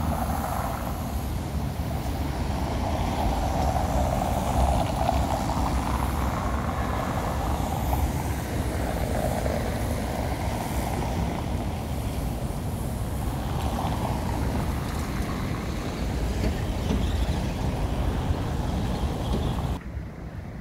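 Street traffic going by, a steady rumble with swells as vehicles pass. Near the end the higher sounds drop away suddenly.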